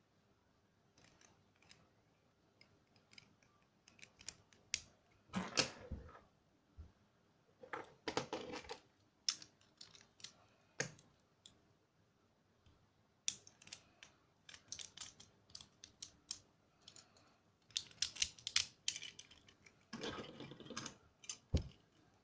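Plastic packaging rustling in short bursts while small plastic spinning-top parts click and tap against each other as a random layer pack is unboxed.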